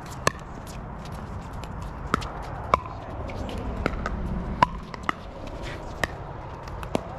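Pickleball paddles hitting a plastic pickleball back and forth in a rally: a string of sharp pops at uneven intervals, about seven of them.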